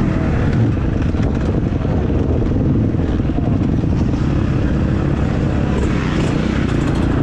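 Motocross bike engine running steadily at low speed, heard close up through the rider's helmet camera.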